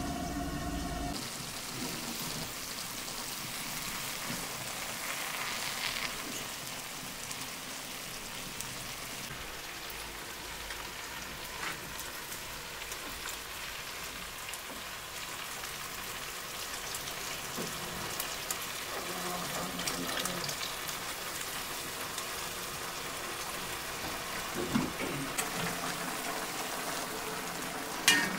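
A big pot of rice and vegetables boiling hard over a wood fire: a steady, rain-like bubbling hiss with fine crackles throughout. A single sharp knock comes near the end.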